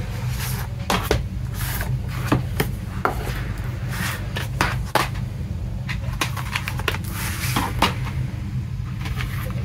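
Hands handling disc packaging on a table: irregular light clicks, taps and slides of a plastic disc case and cardboard slipcase being picked up and set down, over a steady low hum.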